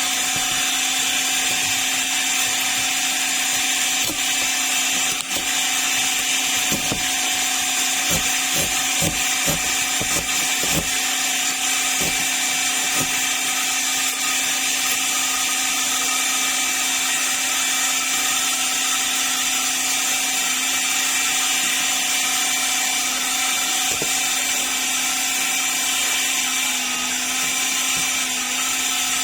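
Handheld electric power tool running steadily with a high, even whine as it trims the excess carbon fibre laminate off the edges of a part. There are a few short knocks about seven to eleven seconds in.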